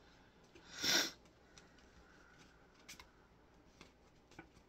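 Hands working the plastic parts of a CD/cassette stereo: a short scraping rustle about a second in, then a few faint clicks.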